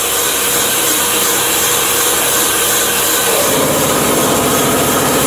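HY1210 mini circular knitting machine running steadily with a loud mechanical whir as it knits a fabric tube. About three and a half seconds in, a rapid, even rattle joins in.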